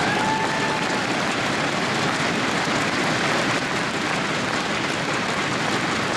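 Large audience applauding steadily, with some cheering.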